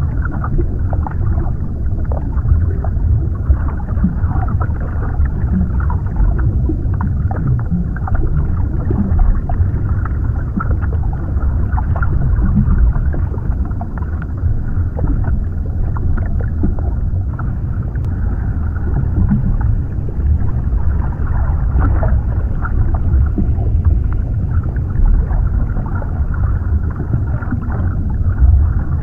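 Underwater ambience: a steady low rumble with faint scattered crackles, the sound as heard below the water's surface.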